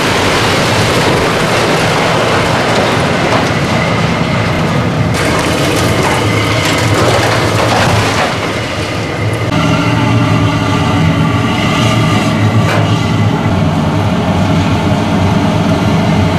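Concrete and steel debris crashing and rumbling down as a high-reach demolition excavator pulls down a building wall, over the machine's diesel engine. After about nine seconds the crashing dies away and the excavator's engine is left running steadily, with metal clatter and one sharp knock.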